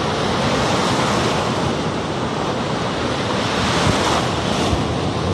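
Ocean surf breaking and foaming around the wader in the shallows: a steady, rushing wash of waves.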